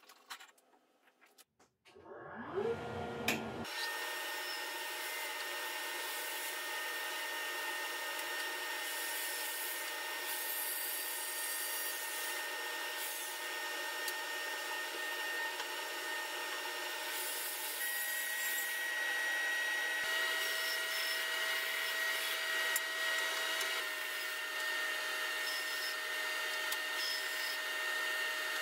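Record Power Sabre 350 wood bandsaw and FABTEC FCX2500 dust collector switching on about two seconds in, rising in pitch to a steady run. A pine board is then cut on the bandsaw, the blade's rasp coming and going over the steady drone of the motors while the collector draws the sawdust through the hose.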